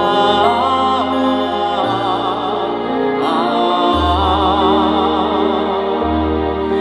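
Live slow ballad with band accompaniment and long sung notes held with vibrato over a changing bass line.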